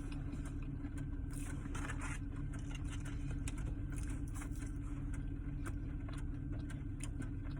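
Steady low hum of a car idling, heard from inside the cabin, with faint scattered small clicks.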